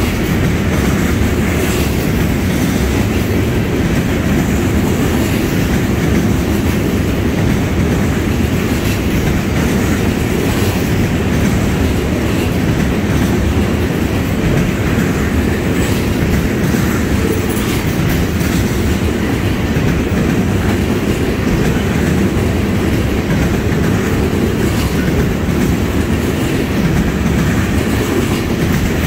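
Freight cars of a trash train rolling past close by: a steady rumble of steel wheels on rail, with a clickety-clack as the wheels cross the rail joints.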